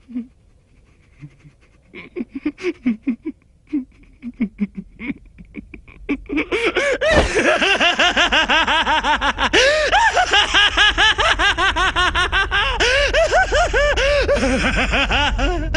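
A man's laughter, voiced for an animated character: soft, broken chuckles and snickers that swell about six seconds in into loud, continuous triumphant laughter, with a low rumble underneath.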